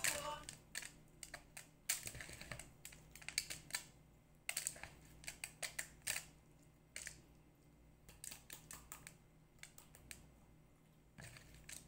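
Light, irregular clicks and taps of hands stuffing vegetables with rice filling from a steel bowl. The clicks come thickest in the first few seconds and thin out after.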